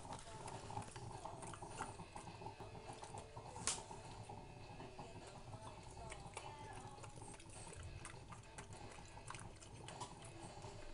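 French bulldog licking its lips and chewing: faint, irregular wet mouth clicks, with one sharper click a little under four seconds in.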